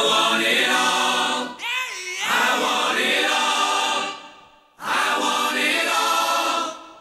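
A choir of voices singing held chords in three phrases: the first breaks off about a second and a half in, the second fades out around four seconds, and the third fades near the end.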